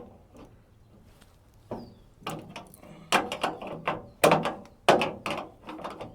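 A run of sharp metallic clicks and clanks from hand tools being handled against a truck's steel door, the loudest about three, four and five seconds in, during work to remove a broken door latch.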